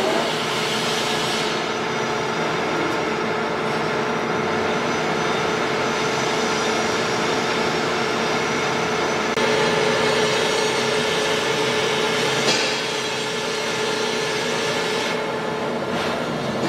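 TOS Trencin SN 63 C gap bed lathe running with its chuck spinning: a steady mechanical whir with a steady whine over it, a little louder from about halfway through.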